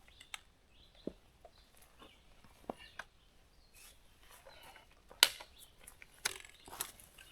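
Quiet trailside forest with scattered light clicks and ticks, and one sharper snap about five seconds in.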